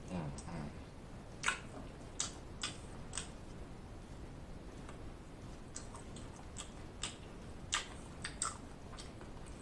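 Mouth sounds of eating sauced chicken wings: a dozen or so short, wet lip smacks and finger-sucking clicks, irregularly spaced, after a brief low hummed "mm" at the start.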